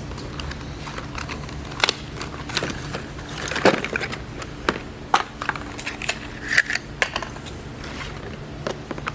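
Scattered sharp clinks and knocks of hard objects being handled, clustered in the middle, over a steady low hum.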